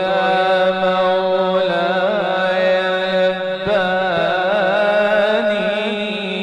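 A solo voice singing a long ornamented melisma in an Islamic ibtihal, its pitch wavering and turning over a steady held drone. It fades away near the end.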